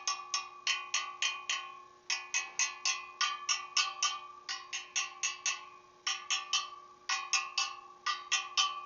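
Motorcycle wheel spokes tapped one after another, about three or four taps a second in runs with short breaks, each giving a short ringing note. This is a spoke-tension check: a tight spoke rings clearly, and a loose one stands out with a lower, different note.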